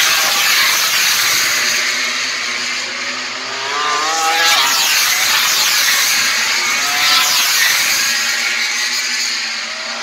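MotoGP racing motorcycles passing one after another at full throttle, engines revving hard through the gears. The pitch climbs and drops with each bike, several passes overlapping, one standing out about four seconds in and another near the end.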